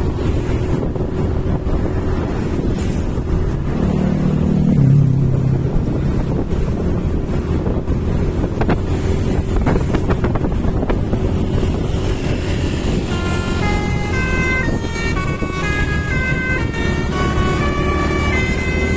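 Steady traffic and engine rumble with wind buffeting the microphone. About thirteen seconds in, a bus's 'telolet' musical air horn starts a quick melody of stepped notes, several sounding together as chords.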